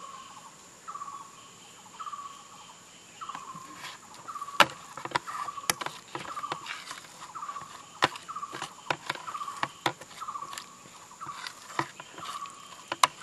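A metal spoon clinking and scraping against a ceramic bowl as it stirs a thick mustard-seed paste, in sharp irregular clicks from about four seconds in. Under it, a steady high insect drone and a short chirp repeating about once a second.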